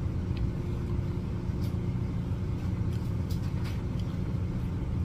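Steady low machine hum, with a few faint clicks of a plastic fork picking at food.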